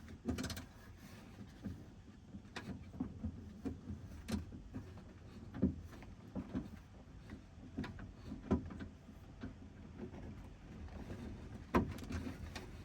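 Irregular clicks and knocks of hand tools against metal inside a pickup's door as the door-handle retaining nuts are worked on.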